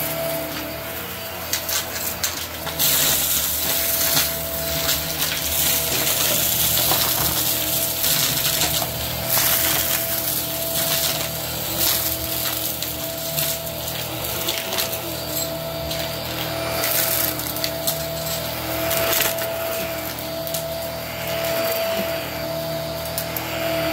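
Hart cordless stick vacuum running with a steady motor whine, the debris it sucks up from the rug rattling and crunching through the nozzle and into the dust canister in waves as it passes over the bits.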